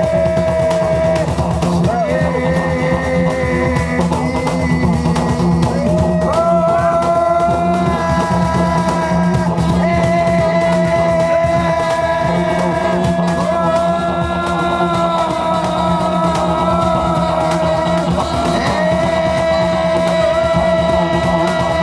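A Georgian band playing live, loud and rock-tinged. A melody line holds long notes and slides between them over a steady beat.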